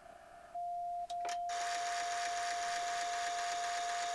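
An Icom IC-705 and LDG Z11 Pro automatic antenna tuner going through a tuning cycle. A steady tone starts about half a second in. A click follows near one second, then a rapid mechanical clatter of tuner relays over a hiss sets in and runs on under the tone.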